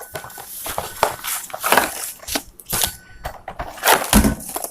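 Crinkling and rustling of packaging as a cardboard sample box is opened and its contents pulled out, with many small crackles and a dull thump about four seconds in.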